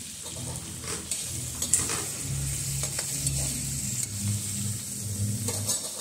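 Cubes of kaddu (pumpkin) sizzling in hot mustard oil in a steel kadhai, stirred with a spatula that scrapes and clinks against the pan several times over a steady hiss.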